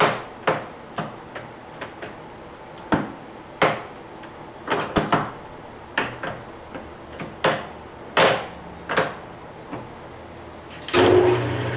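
Repeated irregular clicks and clunks of the speed-change levers on a Webb WL435 gap lathe's headstock being shifted to select a new spindle speed. About eleven seconds in the lathe starts up and runs with a steady hum.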